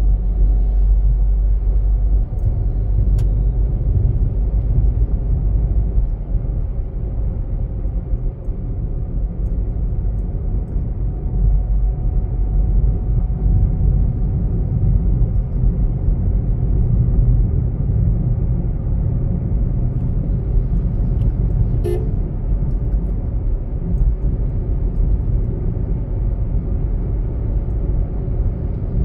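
Steady low rumble of road and engine noise heard from inside a car driving along a highway, with one brief sharp sound about three-quarters of the way through.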